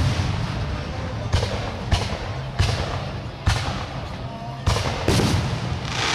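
Aerial firework shells bursting one after another: about six sharp bangs, each trailing off in an echo.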